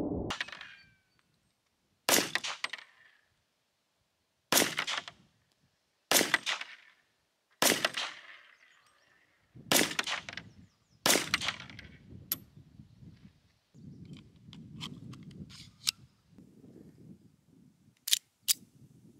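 Colt Model 1903 Pocket Hammer pistol in .38 ACP firing seven single shots, about one and a half to two and a half seconds apart, each with a short echo. Near the end come two sharp metallic clicks close together as the pistol is handled.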